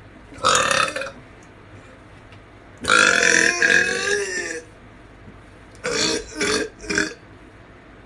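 A young man burping: a short burp about half a second in, then a long, loud, drawn-out burp with a wavering pitch, then three short burps in quick succession near the end.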